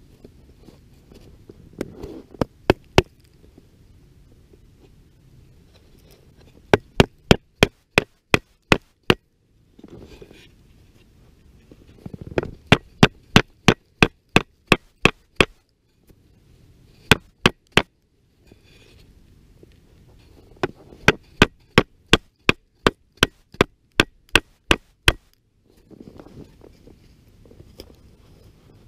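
Wooden baton striking the spine of a knife, driving the blade into a stick to cut a pot hanger notch. Sharp knocks come in quick runs of three to ten strikes, about three a second, with pauses and softer rustling between the runs.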